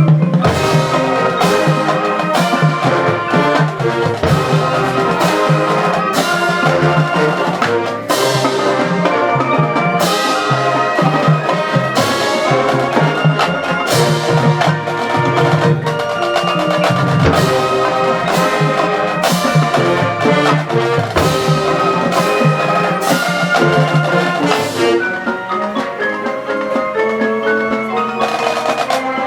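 High school marching band playing, with drums and mallet percussion such as marimba and glockenspiel prominent over sustained pitched notes.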